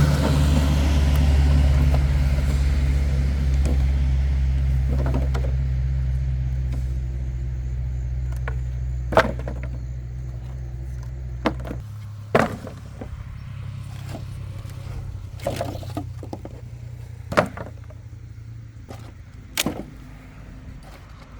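An engine running steadily with a low, even hum that fades gradually, then drops to a lower, quieter hum about twelve seconds in. Five or so sharp knocks are heard over the second half.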